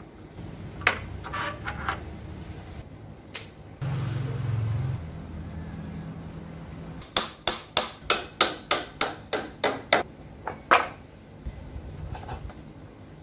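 Hammer blows: a fast, even run of about a dozen strikes, roughly four a second, in the second half, followed by one heavier blow. A few scattered knocks come earlier, and a short low hum about four seconds in.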